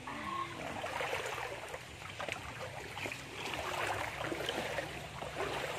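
River water flowing, a steady babble with many small splashing ticks.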